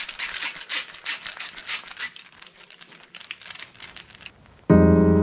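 Hand ratchet clicking quickly, about five clicks a second, as it runs down the small cap nuts on the crankshaft strap studs; the clicking stops about four seconds in. Piano music comes in near the end.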